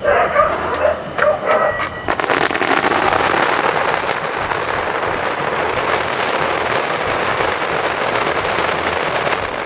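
Firework spraying sparks, with a steady hiss and dense crackle that sets in about two seconds in.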